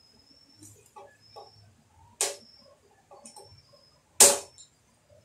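Light clicks and two sharp knocks about two seconds apart, the second the louder, from hands handling a plastic fuel jug and a moped's fuel tank while mixing two-stroke fuel.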